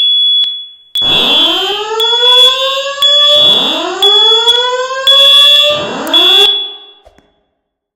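Voice-evacuation fire alarm sounding its whoop tone: three rising sweeps starting about every two and a half seconds, over a high-pitched tone that breaks on and off. The alarm cuts off about seven seconds in.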